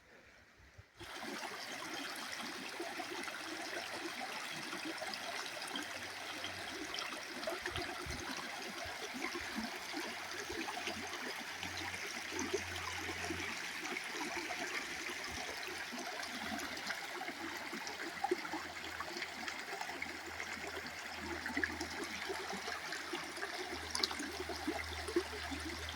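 Haigler Creek, a small mountain trout stream, rushing steadily over rocks, starting abruptly about a second in.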